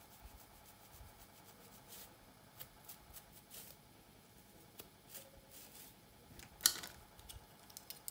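Fine-tooth plastic comb and long fingernails scratching and parting through thick dark hair in soft, irregular strokes, with one louder scrape near the end.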